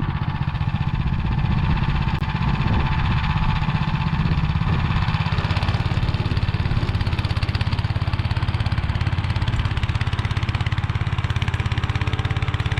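Motor Sich walk-behind tractor's 9 hp Weima engine running steadily with a fast, even pulse while driving a rotary tiller through soil in first gear.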